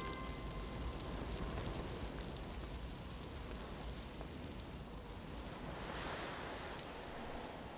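Steady outdoor ambience: an even, wind-like hiss with no distinct events.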